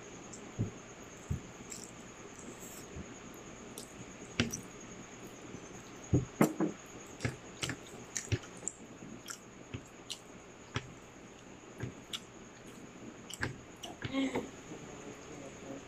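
Close-up chewing and crunching of hard, crispy tutong (scorched rice crust) with kare-kare: irregular short crisp crunches and mouth clicks, with a louder cluster of crunches about six seconds in.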